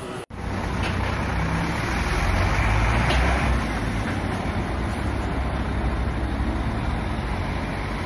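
Large camouflaged military truck driving slowly past, a steady low engine rumble with road noise, loudest a couple of seconds in.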